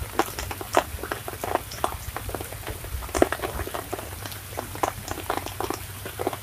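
Light rain pattering: irregular drops tapping close by and on the pond surface, several a second and of uneven strength.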